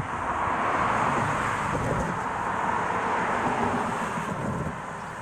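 A car driving past on the street, its tyre and road noise swelling and then fading away.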